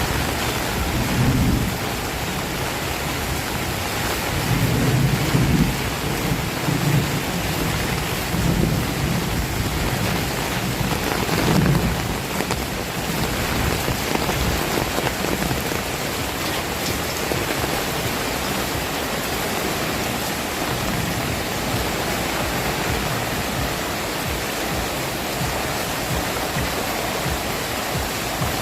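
Heavy rain falling steadily, a dense even hiss. Several low rumbles swell and fade during the first half.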